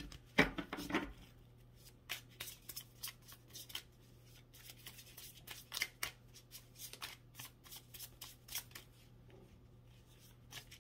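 Tarot cards being shuffled by hand: a run of short, irregular card flicks and slaps, densest and loudest in the first second.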